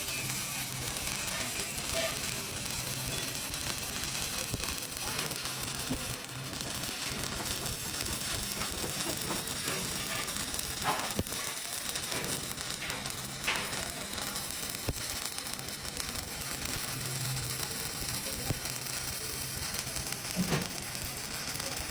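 Electric welding arc sizzling and crackling steadily, with a few sharper pops.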